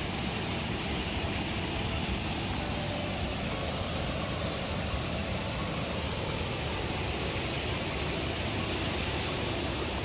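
Steady roar of Kalambo Falls, a very high single-drop waterfall plunging into its gorge.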